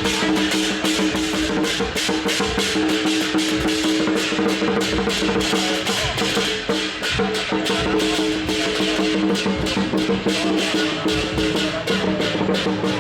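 Procession music: fast, dense drum and percussion strikes over a few steady held notes.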